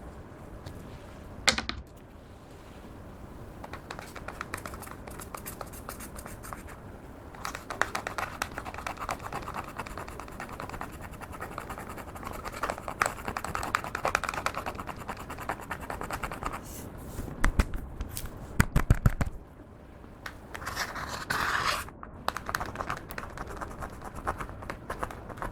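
Clear slime being kneaded and stretched by hand, giving a run of small, rapid clicks and crackles. The clicking grows busier in the middle, then briefly eases about two-thirds of the way through.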